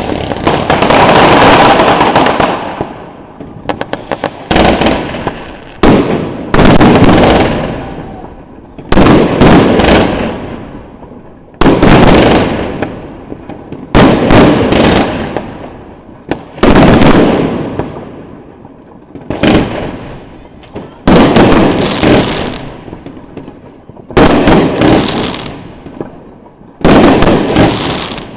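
Consumer firework batteries (a Lesli Royal Z, then a Jorge JW2000 from about 20 seconds in) firing shot after shot, a loud bang every two seconds or so, sometimes two or three close together. Each bang trails off into a crackle that fades over a second or two.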